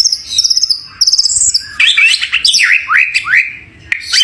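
White-rumped shama singing: a varied run of rapid high trills followed by quick whistles that sweep downward, with a brief pause shortly before the end.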